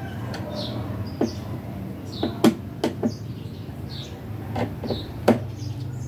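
Hollow knocks and clunks of a twin-tub washing machine's plastic cabinet being handled and set down, a series of sharp knocks with the loudest about halfway through and again near the end. A bird chirps repeatedly in the background.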